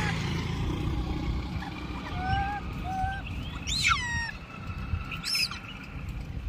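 Macaque monkeys calling: a few short squeaks, then a louder shrill squeal that rises and falls about four seconds in and another high call a second or so later, over a steady low rumble.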